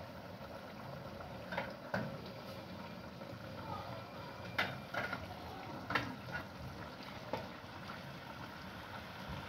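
Pots of food simmering on the stove: a faint steady bubbling hiss with a few short, sharp pops scattered through.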